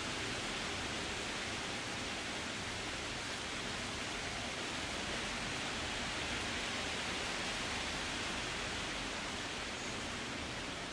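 Wind blowing through forest trees, a steady hiss of moving leaves and branches that holds an even level throughout.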